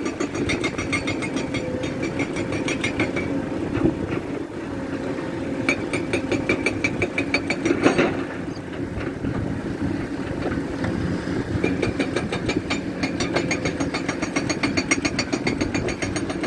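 Caterpillar 336 hydraulic excavator's diesel engine running under load as it digs and loads a truck, its throb pulsing stronger and weaker. A faint whine sounds over the first few seconds, and a single loud bang comes about halfway through.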